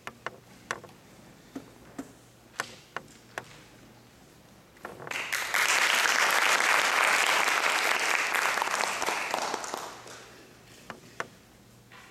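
A few sharp footsteps on the stage floor, then an audience applauding for about five seconds, starting about five seconds in and fading out.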